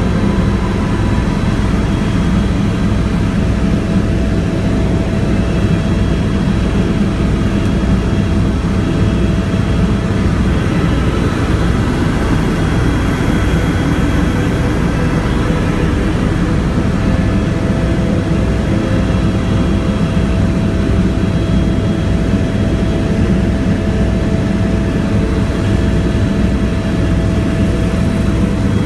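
Helicopter cabin noise heard from inside during flight: a steady, loud drone of engine and rotor, with an even, fast low beat from the rotor blades and a thin steady whine over it.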